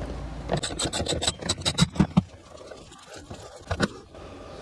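Socket ratchet clicking while a 3/8-inch screw is backed out: a quick run of clicks, about six a second, in the first two seconds, then a few scattered clicks.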